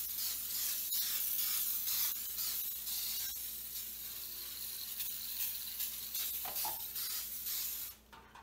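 Aerosol can of Easy-Off oven cleaner spraying in a long, nearly unbroken hiss, which cuts off about eight seconds in.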